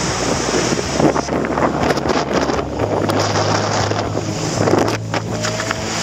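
Atlantic surf breaking against rocks, with spray spattering onto the body-worn camera and wind buffeting the microphone.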